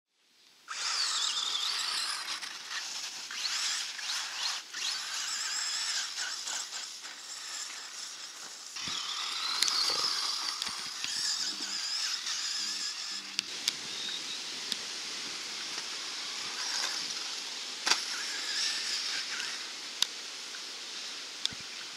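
Radio-controlled off-road car driving on a dirt track: a high motor and gear whine rising and falling with the throttle, over tyres crunching on loose dirt. A few sharp knocks come near the end.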